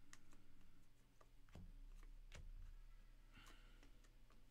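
Faint handling of a stack of glossy trading cards: a few soft clicks as cards are thumbed through, with a short slide of card on card a little past the middle.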